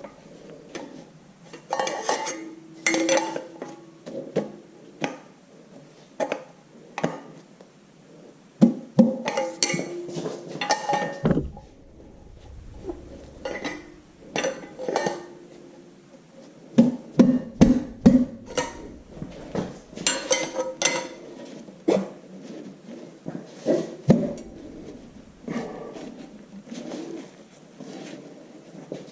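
Irregular metal clinks and knocks, some ringing briefly, as a steel cylinder sleeve is worked and squared by hand into a tractor engine block.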